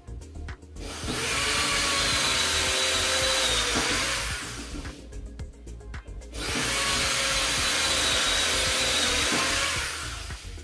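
Red corded electric drill running in two runs of about three and a half seconds each, with a steady whine, boring screw holes into the wooden door through the tower bolt's fixing holes.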